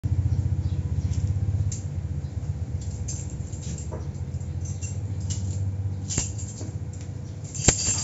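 Sharp metallic clicks of an iron door's latch being handled, ending in a loud clack near the end, over a low, fast-pulsing hum that is loudest in the first two seconds.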